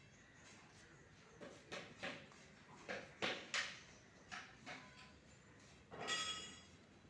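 Wire-mesh rabbit cage rattling in a string of short knocks, then a brief high ringing squeak about six seconds in.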